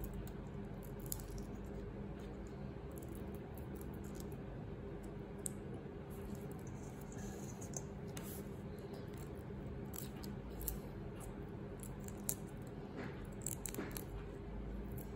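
Raw shrimp being peeled by hand: small, scattered clicks and crackles of shell coming away, more of them near the end, over a steady low hum.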